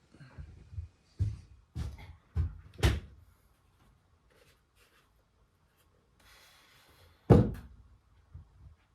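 Knocks and thuds of wooden workpieces being handled and set down on a workbench: four sharp knocks in the first three seconds, a quiet pause, then one loud thump about seven seconds in.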